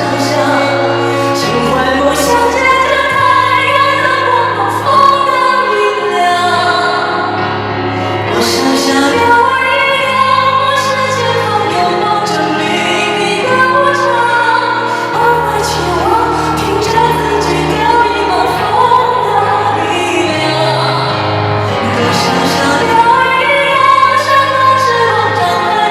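Live performance of a pop ballad: a band plays a sustained bass line under a high singing voice, with choir-like backing.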